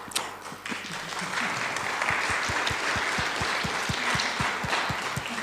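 Audience applause, building up over the first second or so and then holding steady.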